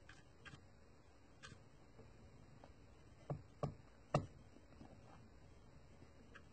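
A paintbrush knocks three times in quick succession against a bowl as it is dipped and worked in the wash. Faint light ticks from the brush touching the work come before the knocks.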